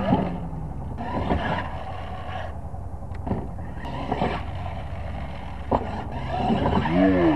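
Radio-controlled scale monster truck running on a dirt track: its motor whines up and down in pitch, strongest near the end, with several sharp thuds of the truck landing and knocking over the ground.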